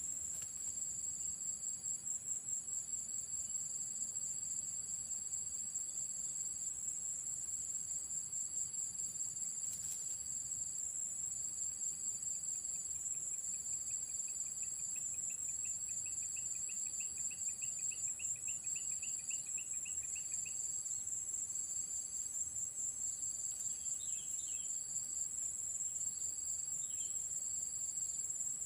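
Insects shrilling steadily at a high pitch, with a second insect chirping in short repeats about once a second. About halfway through, a faint run of quickening chirps lasts several seconds.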